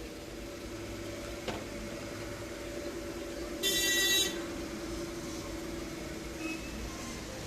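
A short, loud, high-pitched horn toot lasting about half a second about halfway through, over a steady low background hum, with a faint click earlier on.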